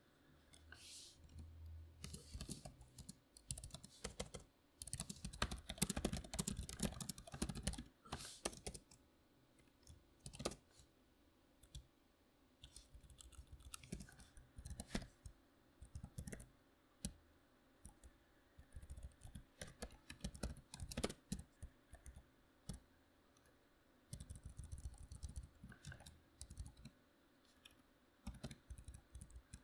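Membrane computer keyboard being typed on: fast runs of keystrokes in the first third, then scattered keystrokes with short pauses, and another brief run later on.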